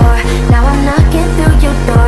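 Background pop music with a heavy bass beat, about two kicks a second, and a bending vocal or synth melody over it.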